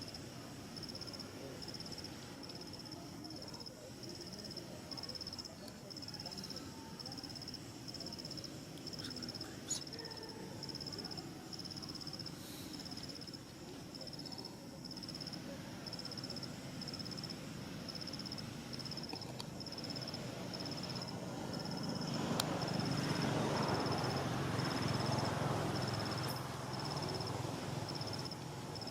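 Insects, likely crickets, chirping in a high, even, steadily repeating pulse. Underneath is a low rumbling noise that swells louder for a few seconds near the end.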